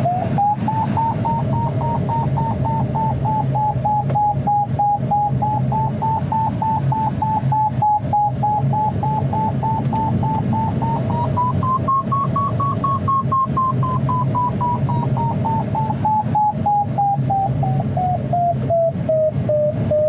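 A glider's audio variometer sounds a fast string of beeps whose pitch drifts, rising to its highest about twelve seconds in and then falling. Its beeping tone signals climb, the pitch tracking the strength of the lift while the glider circles in a thermal. Steady airflow noise runs through the ASK 21's cockpit beneath it.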